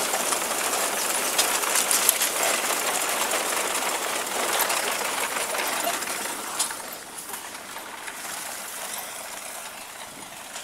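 Tractor-drawn reaper-binder at work, a continuous metallic clatter with many quick clicks and rattles, getting somewhat quieter about two-thirds of the way through.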